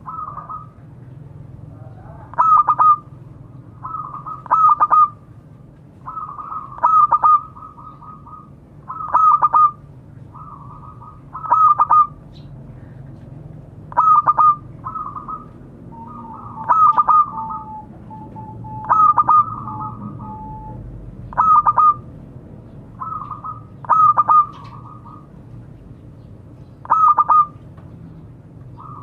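Zebra dove (perkutut) cooing, its short clipped phrase repeated over and over, about one phrase every two seconds, as a call to other doves.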